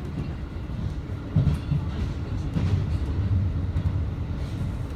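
JR train running on the rails, a steady low rumble with a louder knock about a second and a half in.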